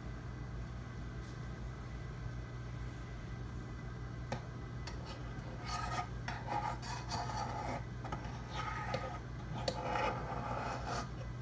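A couple of sharp clicks, then irregular bursts of scraping and rubbing from about halfway in, over a steady low hum.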